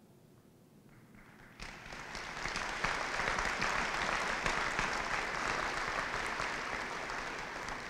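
Audience applauding, starting about a second and a half in, building quickly and then slowly dying away.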